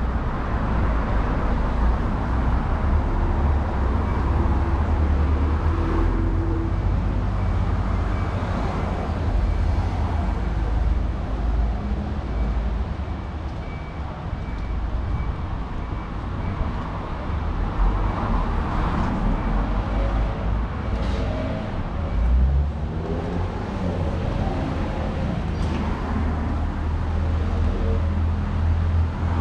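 Street traffic: cars driving past with a steady low rumble of road noise.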